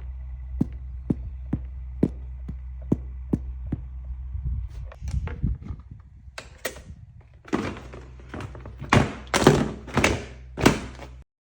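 Regular light clicks, about two and a half a second, over a steady low hum, giving way to a run of heavier thunks and rustling bursts that are loudest in the last few seconds, then the sound cuts off.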